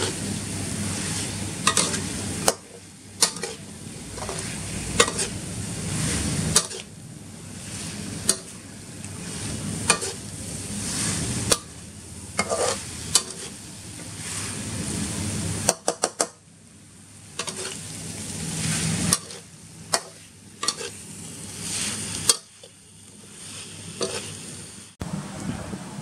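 Freshwater eel and basil stir-frying in a metal wok: steady sizzling, with the spatula scraping and knocking against the pan every second or two. The sizzle drops away abruptly several times.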